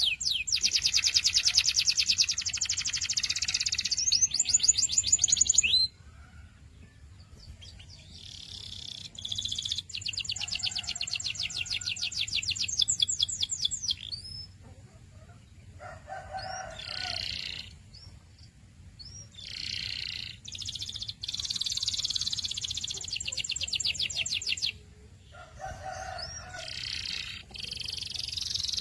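Domestic canary singing: fast rolled trills of rapidly repeated high notes, in phrases a few seconds long separated by short pauses.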